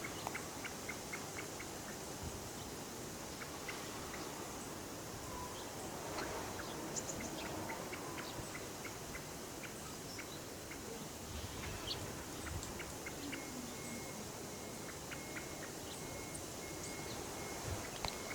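Outdoor field recording of wild birds: scattered short, high chirps and ticks over steady background hiss, with a thin, broken high whistle-like tone in the last few seconds.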